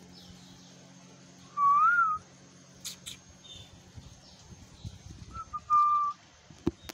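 Nursing puppies whining: two high, whistle-like whines, one about two seconds in that rises and falls, and one near the six-second mark held steady, with a few sharp clicks between them.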